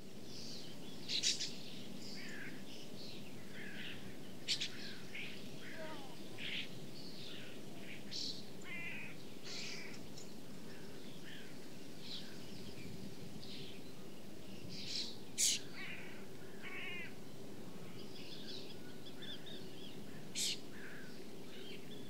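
A flock of gulls calling as it lands on the water: many short, high calls, overlapping and scattered throughout, the sharpest about a second in and three more times later on. Beneath them runs a steady rush of splashing water.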